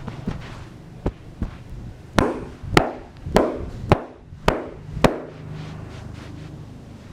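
Percussive hand strokes of a massage: two light taps, then six sharp slaps or chops about half a second apart.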